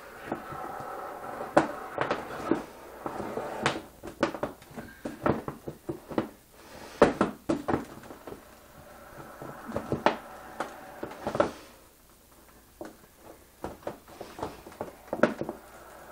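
Handling noise: irregular clicks, taps and knocks as objects are moved and handled by hand, with a faint hum that comes and goes underneath.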